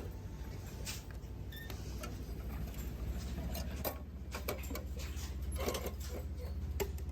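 Hot-food vending machine preparing a bowl of udon: a steady low hum with scattered clicks and knocks.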